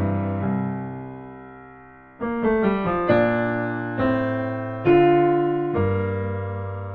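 Solo piano playing slowly. A chord rings and fades for about two seconds, then a quick run of notes leads into chords struck about once a second, each left to ring out.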